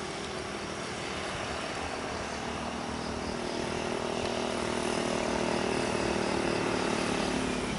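Bus engine running as the bus approaches, a steady drone that grows slowly louder.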